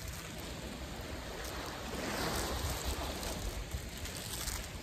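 Small waves washing onto a sandy shore, with wind buffeting the microphone.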